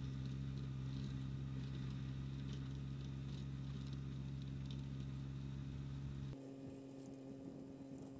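Distant Kubota BX2360 compact tractor's diesel engine running at a steady pitch, heard as a low hum. About six seconds in, the deepest part of the hum drops out abruptly and a thinner, higher hum carries on.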